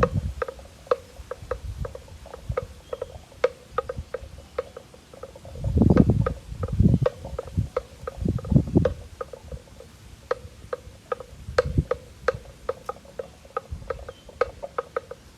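A cow grazing: rapid, irregular crunching clicks of grass being torn and chewed, several a second. A few low rumbles come through around the middle of the stretch.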